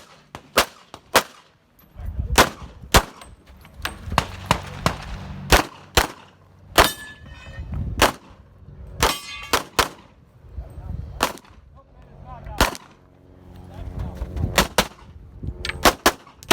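A string of pistol shots at a quick, uneven pace, about twenty in all. Twice a steel target rings after being hit.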